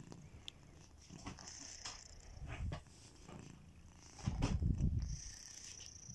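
Sleeping domestic cat snoring: rumbling breaths, a softer one about a second in and a louder one after about four seconds.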